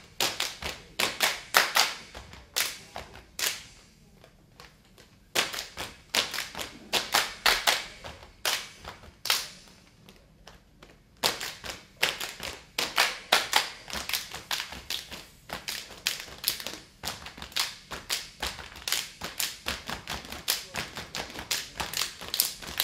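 Saman dance body percussion: a row of kneeling dancers clapping their hands and slapping their bodies in unison. The claps and slaps come in quick rhythmic flurries, broken by a couple of short pauses.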